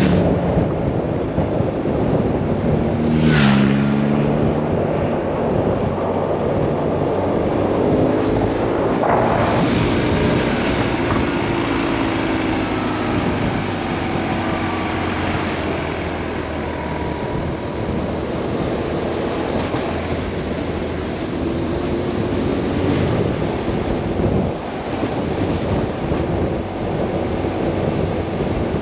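Wind rushing over the helmet microphone while riding a BMW R 1150 RS, with the bike's boxer twin engine heard faintly beneath it. The engine note drops and rises in pitch about three seconds in and again near nine seconds, as the throttle changes.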